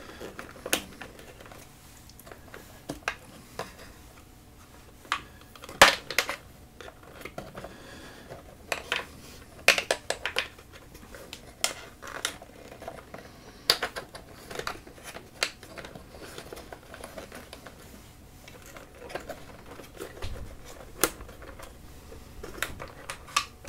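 Irregular small clicks, taps and knocks of hands handling pedalboard parts and power cables, with one sharper knock about six seconds in.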